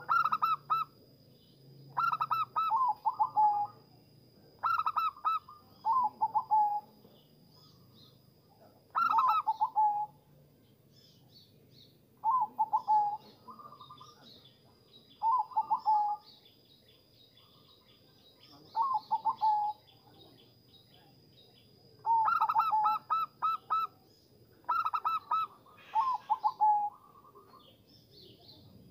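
Zebra dove (perkutut) cooing: about a dozen short phrases, each a quick string of rolling, stuttering notes lasting about a second, repeated every few seconds with a longer pause midway.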